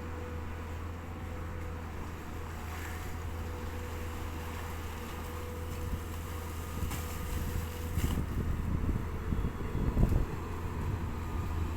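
Long-reach excavator's diesel engine running steadily. From about eight seconds in, louder irregular low rumbling comes and goes, loudest near ten seconds, with a sharp knock at about eight seconds.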